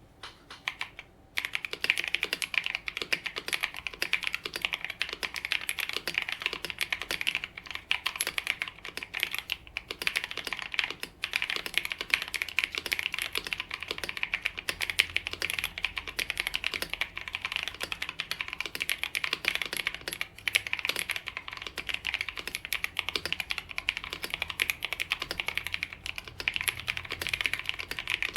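Continuous fast typing on an Apollo61 Lightyear mechanical keyboard with lubed 62 g Gazzew Boba U4T tactile switches, damped by case, PE and plate foam: a dense run of key strokes that starts about a second and a half in, with a couple of brief pauses.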